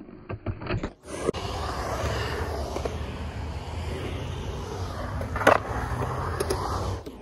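Skateboard wheels rolling and carving on a concrete bowl: a steady rumble, with a few clacks in the first second and one sharp loud clack about five and a half seconds in.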